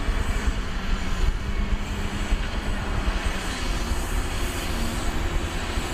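Heavy tipper semi-trailer truck running steadily with its body raised to tip sand: a dense, low, even rumble that starts and stops abruptly.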